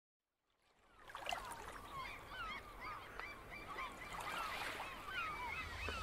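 A flock of birds calling: many short cries that rise and fall in pitch, several a second and overlapping, over a steady hiss. The calls start about a second in.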